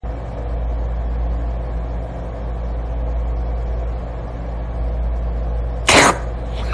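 Cat purring loudly close to the microphone, a steady low rumble. About six seconds in, a brief loud burst of noise cuts over it.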